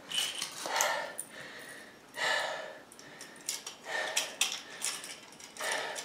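A man breathing hard to recover after a set of handcuffed push-ups: four long, noisy breaths about a second and a half apart, with a few faint clinks of the handcuffs between them.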